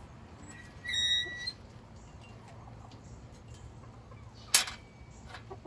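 A single high-pitched bird call, held for about half a second, about a second in, rising slightly at its end. Near the end there is one sharp knock or click.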